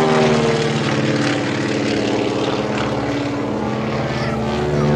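Twin-engine propeller airplane flying an aerobatic display overhead, its engines and propellers droning with a slowly shifting pitch, louder again near the end.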